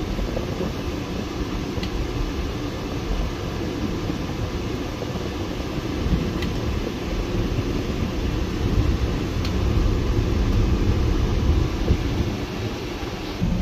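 Garbage truck's engine idling with the air-conditioning blower running, a steady low rumble heard inside the cab.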